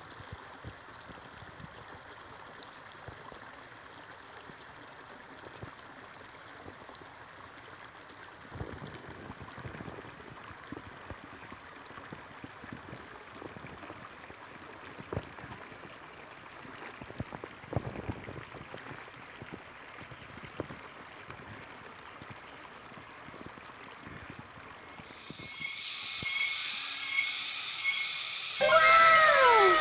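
Mountain stream water running over rocks, a steady rushing with a few faint knocks and scrapes mixed in; it grows louder and brighter a few seconds before the end, when the water is close. Near the end come a few short pitched sounds, each falling in pitch.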